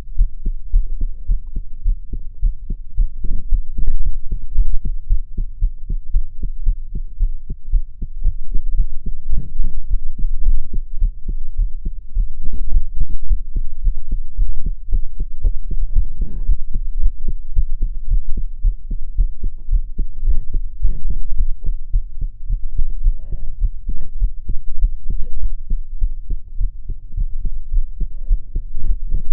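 A young woman's heartbeat, recorded while she is crying: a steady run of low, evenly repeating thumps, with a few brief louder noises over it now and then.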